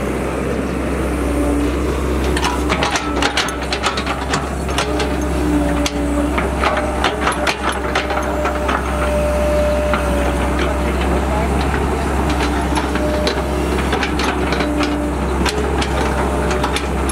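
Cat E120B excavator's diesel engine running steadily as the bucket digs in mud, with whining tones that come and go and many sharp clicks and knocks from the bucket and tracks.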